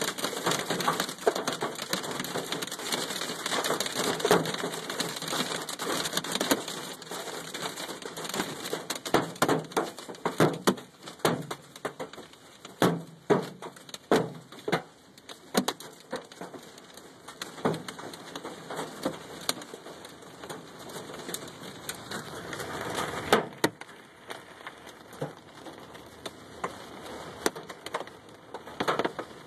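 Golf-ball-sized hail striking a truck's body: a dense rattle of impacts that thins to scattered, sharp strikes, with a short heavy flurry later on.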